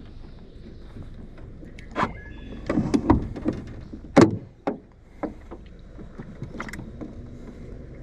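Knocks and thumps in a small fishing boat: a cluster of bumps around two to three and a half seconds in, the loudest single thump about four seconds in, then a few lighter knocks.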